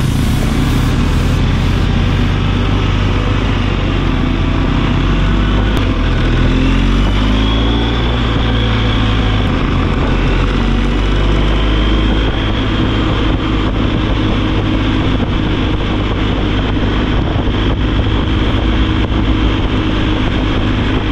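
Adventure motorcycle riding at speed: engine running under steady wind noise, its pitch climbing for a few seconds as it accelerates about six to nine seconds in.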